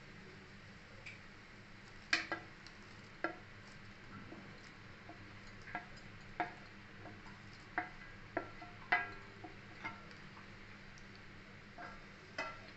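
A spoon stirring scrambled egg into a simmering gravy in a non-stick pan, knocking against the pan about ten times in irregular sharp clinks over a faint steady hum.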